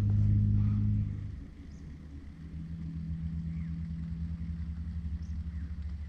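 Low, steady sci-fi hum over a deep rumble, the sound effect of a hovering flying saucer. It is loudest for the first second, then drops. About two and a half seconds in, a lower steady drone settles in.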